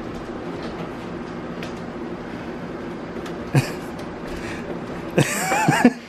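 A steady low hum, then a sudden sharp knock about three and a half seconds in, and near the end a loud, shrill shriek lasting under a second whose pitch wavers up and down.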